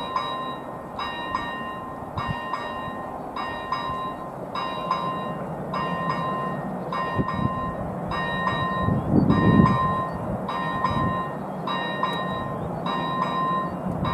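Electronic level-crossing bell (AŽD E-bell ZV-01) ringing a repeated bell-like ding at an even pace. It starts right at the beginning, as the crossing begins warning of an approaching train. A low rumble swells briefly a little past the middle.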